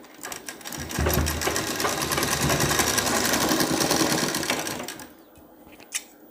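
Domestic sewing machine running, stitching a second reinforcing seam over the first through folded fabric; it starts about a second in with a fast, even stitching rhythm and stops near the five-second mark, followed by a single click.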